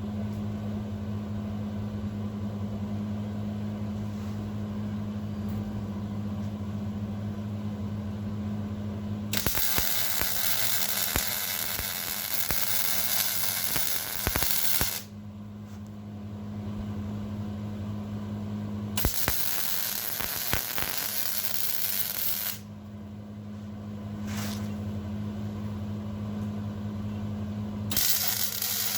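Welding an anchor plate onto a steel railing leg, each bead a steady hissing arc: three runs, about six, three and a half, and one second long, starting about nine, nineteen and twenty-eight seconds in. A steady low hum fills the pauses between runs.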